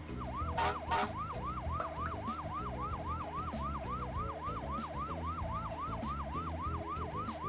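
Cartoon fire truck's siren in a fast, repeating yelp. Each short sweep rises in pitch, about three to four a second, evenly.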